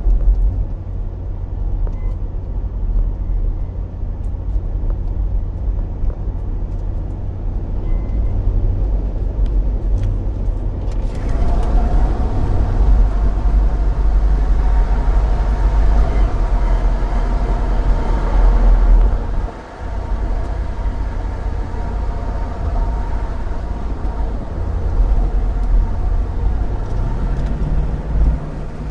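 Mercedes-AMG G63's twin-turbo V8 idling under the hood, with a few faint, short, high chirps: the unexplained beeping at idle that sets no fault codes. About eleven seconds in the engine sound grows fuller and brighter.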